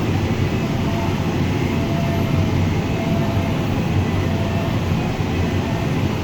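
Tractor pulling a high-density hay baler through the windrows, engine and baler running steadily under load with a constant low hum.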